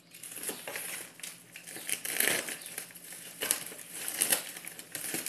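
A USPS Priority Mail plastic mailer crinkling and rustling in irregular bursts as it is torn and pulled open by hand.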